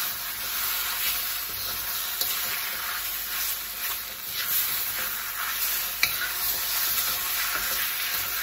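Fresh rice noodles sizzling in a hot wok while a metal spatula stirs and scrapes them, with a few sharp clicks of the spatula against the pan.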